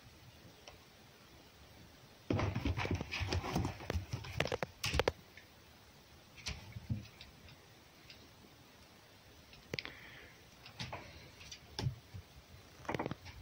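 Fox and cat scuffling on a wooden box: a quick run of knocks and scrabbling paws for about three seconds, then scattered single thumps.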